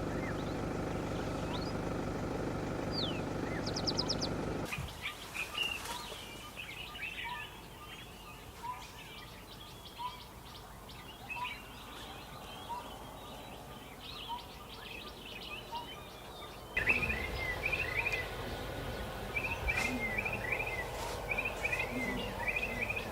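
A vehicle's engine idling steadily, cutting off abruptly about five seconds in; then many birds chirping and calling, with a soft note repeated about once a second, getting louder with more chirping from about seventeen seconds in.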